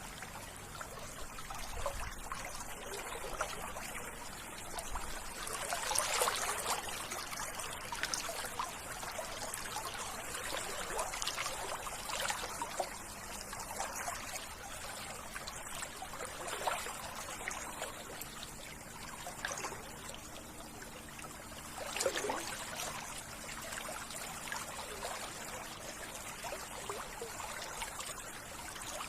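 Water trickling and babbling in a small stream: a steady rush with many small splashes.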